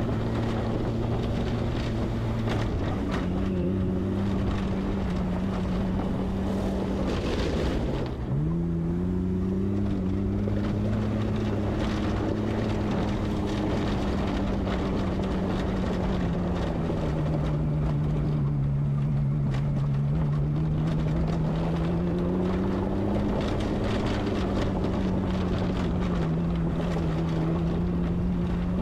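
Off-road 4x4's engine pulling along a rough dirt trail, its note slowly rising and falling with the throttle; about eight seconds in it drops briefly and then climbs again. Tyre and gravel noise and small rattles run underneath.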